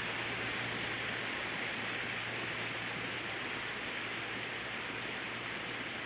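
Steady, even rushing noise with a faint low hum underneath. No bird call is heard.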